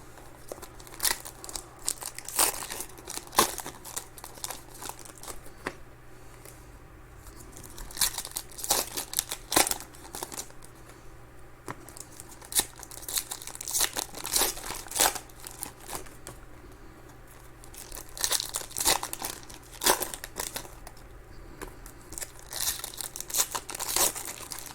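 Trading-card pack wrappers being torn open and crinkled, in repeated bursts of crackling with short pauses between.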